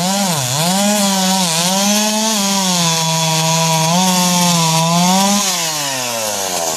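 Chainsaw cutting through a log, its engine pitch rising and falling as it bogs and recovers under the load. About five seconds in, the engine eases off to a lower pitch.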